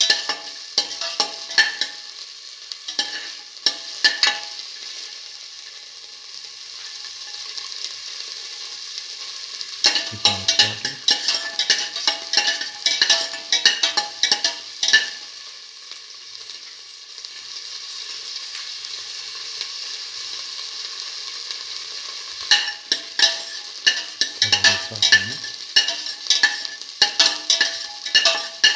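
Whole shallots sizzling in hot oil in a stainless steel pan as they sauté. They are stirred in three spells, at the start, around the middle and near the end, with the stirring utensil clicking and scraping against the pan; between the spells only the steady sizzle is heard.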